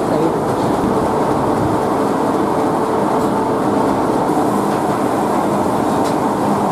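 Steady, loud mechanical noise of wood-briquetting plant machinery running, without breaks or a clear beat.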